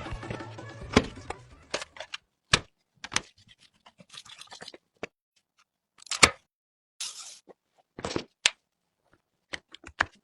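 Scattered clicks, taps and short scrapes of computer parts being handled and fitted during a PC build. About a dozen separate sharp sounds come at irregular intervals, with a brief scraping rasp about seven seconds in.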